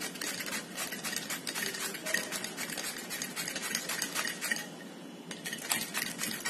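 Peeled cucumber rubbed back and forth over the steel blades of a handheld plastic julienne grater: a quick run of scraping strokes, several a second, with a short lull about five seconds in.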